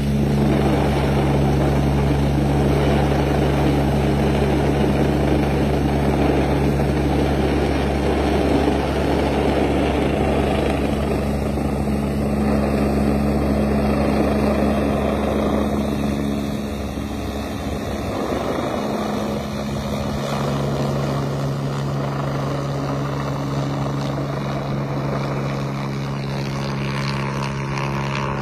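Rescue helicopter's rotor and turbine running close by, a steady loud hum with a deep beat, easing off somewhat after about 16 seconds as the helicopter climbs away.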